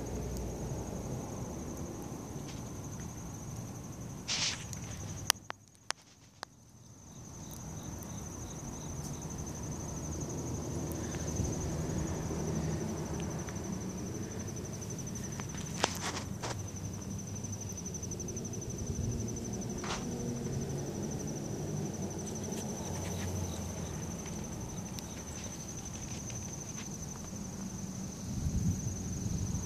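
Insects trilling steadily at one high pitch, over a low rumble of wind and handling noise, with a few sharp clicks and a brief dip to near silence a few seconds in.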